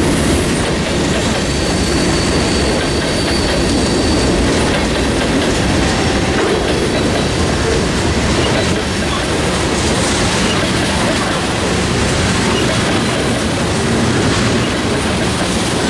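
Freight train of covered hoppers and tank cars rolling past close by at a steady pace: a continuous rumble and clatter of steel wheels on the rails, with a thin high wheel squeal from about a second in, lasting a few seconds.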